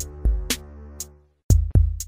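Background electronic music with a drum-machine beat: heavy bass-drum hits and sharp snare or hi-hat strikes over a held synth chord that fades out about a second and a half in.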